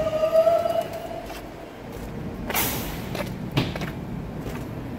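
Stopped New York City subway train at a platform: a short steady tone near the start, a brief hiss of air about two and a half seconds in, and a thump a second later, with another short hiss at the very end.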